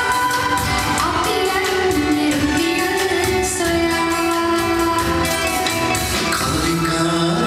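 Live band music with a woman singing, held wavering notes over a steady beat.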